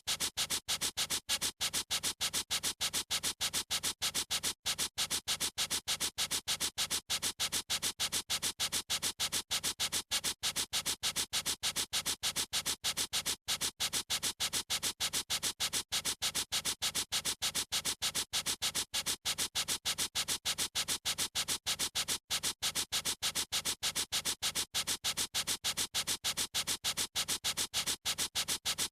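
Felt-tip marker scribbling on paper in quick, even back-and-forth strokes, about five a second, a steady scratchy hiss that repeats without change.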